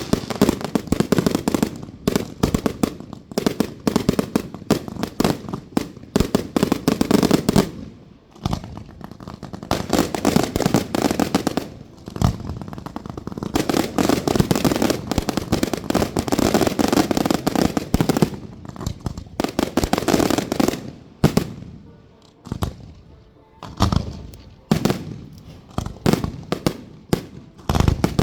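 Fireworks display: rapid, near-continuous bangs and crackling, with two brief lulls. In the last several seconds it thins out to scattered single bangs.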